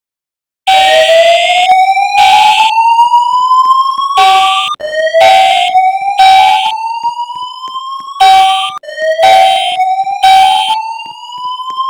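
A school's newly installed voice-evacuation fire alarm system being tested, starting suddenly about a second in. Its speakers play a slow whoop, a tone rising steadily in pitch, repeating about every four seconds, with short steady horn blasts cutting in over it again and again. This is the alert tone that comes before the spoken evacuation message.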